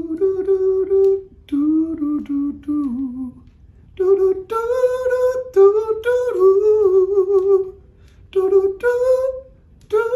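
A man's voice imitating a trumpet, humming a wordless melody in four short phrases. The line leaps up to a high note and drops back down.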